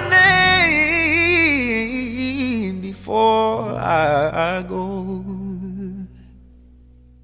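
Pop song with a singing voice holding long, wavering notes over the backing. About six seconds in the song ends, leaving a low held note that fades away.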